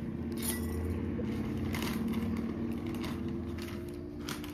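A cat eating from a ceramic bowl, with a few sharp clinks and scrapes as a scoop adds food to the bowl, over a steady low hum.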